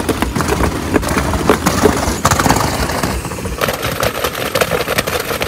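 Turbocharged car engine revved hard in a backfire display, its exhaust letting off rapid, irregular pops and bangs over the engine's rumble. It is run so hard that the turbo and exhaust exit glow red.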